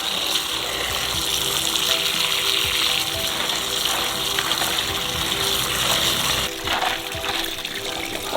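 Water running steadily over soft background music. The water eases off about six and a half seconds in, and a few light knocks follow.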